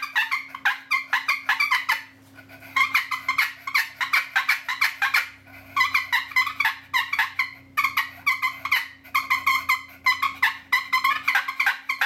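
Homemade wooden multi-pyramid push-button turkey call worked back and forth, giving fast runs of short, raspy turkey-like notes with brief pauses between the runs. A faint steady hum lies underneath.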